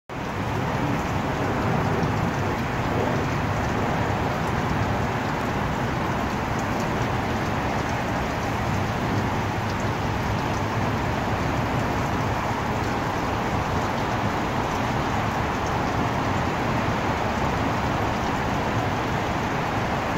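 Wind buffeting the microphone: a steady rushing noise with a fluttering low rumble.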